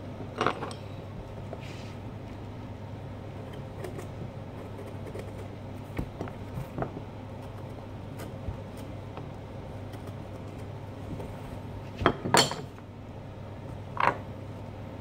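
Metal carving knives and gouges clinking against each other on the work table as they are set down and picked up: a few sharp clinks, the loudest pair about twelve seconds in, over a steady low hum.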